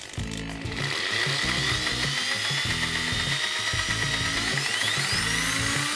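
Parkside PSBM 500 C4 corded hammer drill running with no load, its motor whine starting about a second in and climbing steadily in pitch as it speeds up. Background music with a steady beat plays underneath.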